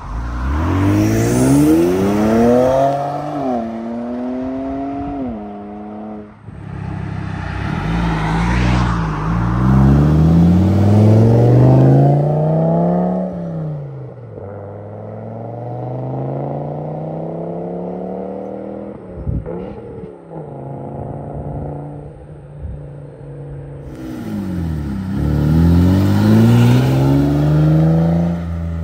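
Modified car engines accelerating hard one after another, each revving up with a rising pitch that steps down at gear shifts. There are three or four loud pulls, with a quieter stretch in the middle.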